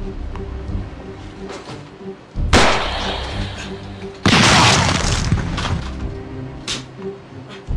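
Background music, broken by two loud crashes, each lasting about a second: one about two and a half seconds in and a louder one about four and a half seconds in.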